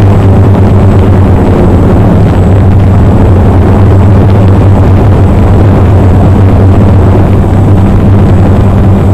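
Multirotor drone's motors and propellers heard from its on-board camera while it hovers: a loud, steady low hum with a rough, noisy edge.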